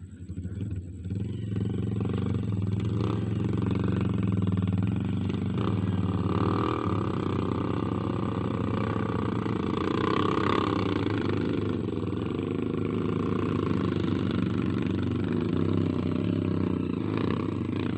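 Motorcycle engine running steadily, coming in about a second in and holding at a steady pitch.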